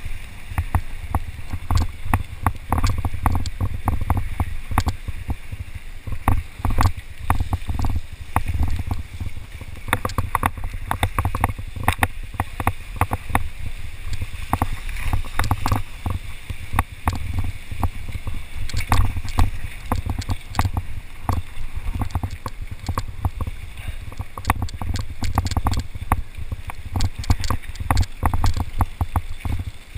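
Mountain bike riding fast down a rough dirt and rock trail: low wind rumble on the microphone with constant irregular rattling and knocking as the bike jolts over the ground.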